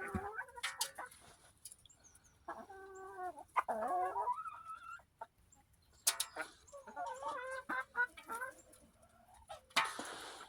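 Hens clucking while they feed: a string of drawn-out, wavering calls, with a few sharp taps between them and a short rustling burst near the end.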